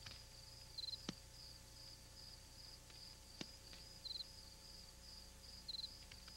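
Faint cricket chirping, a steady run of rapid high chirps with a short, slightly lower trill every second or two. A few faint pops from a small campfire, the clearest about a second in and again past three seconds.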